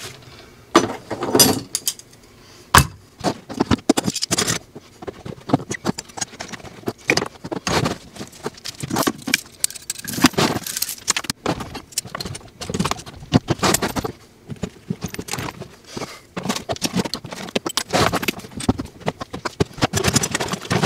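Metal hand tools clinking and clattering irregularly as they are picked up and packed into a fabric tool bag.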